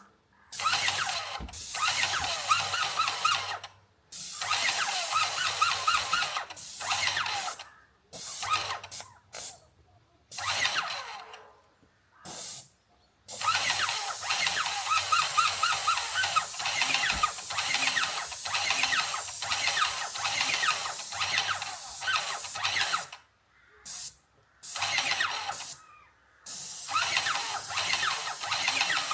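A handheld power tool working on metal in repeated on-off bursts of one to several seconds, with a wavering squeal over a harsh hiss.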